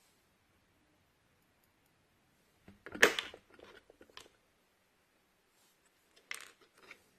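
Small hand tools and plastic parts of a smartphone repair kit being handled, in short bursts of clicking and clatter: one about three seconds in with a smaller knock just after, and another near the end.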